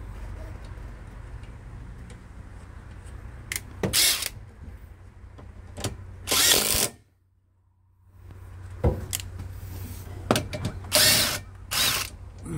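A cordless power tool run in about four short bursts, each under a second, with a few sharp clicks between them, over a low steady hum. The sound cuts out almost completely for about a second partway through.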